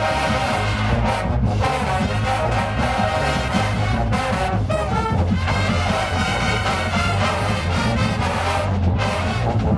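Marching band playing, loud brass (trumpets and trombones) carrying sustained chords over percussion.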